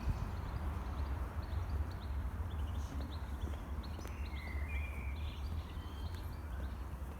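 Outdoor street ambience: small birds chirping and twittering over a steady low rumble.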